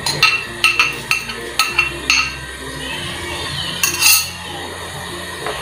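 A spoon knocking and scraping against a cooking pot while stirring dried potato (papa seca) into the liquid: quick clinks several times a second for the first two seconds, then quieter stirring with one louder scrape about four seconds in.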